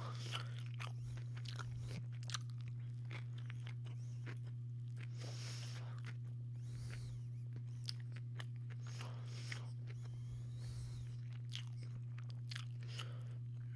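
A person chewing a sandwich, with irregular crunching bites and chewing noises. A steady low hum runs underneath.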